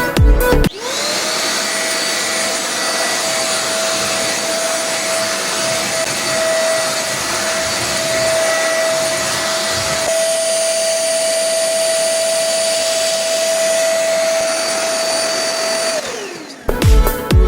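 Deerma DX700 stick vacuum cleaner switching on with a quick rising whine and running steadily, a high whine over rushing air. Near the end it switches off and winds down with a falling whine.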